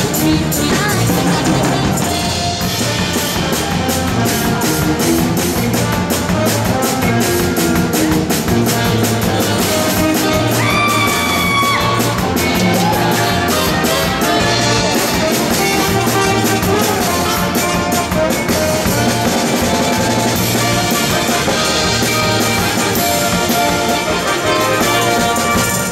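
Lively circus music with a fast, steady drum beat, running without a break.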